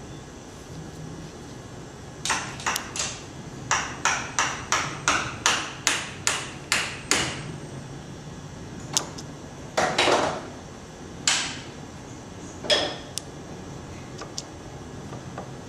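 Hand tool tapping while working on a transmission control module's pressure switches: about a dozen sharp taps in quick succession, roughly three a second, then a few scattered knocks.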